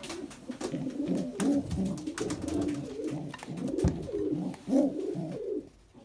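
Racing pigeons cooing in the loft: low, warbling coos overlapping throughout, with scattered light clicks.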